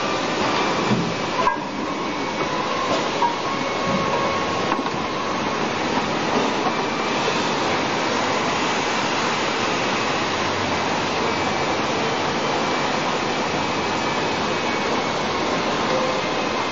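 A 5-litre water bottle washing, filling and seaming machine running: a steady mechanical din, with a few clicks and knocks in the first five seconds.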